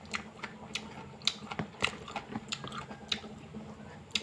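A person chewing food close to the microphone, with a dozen or so short, irregular mouth clicks and smacks.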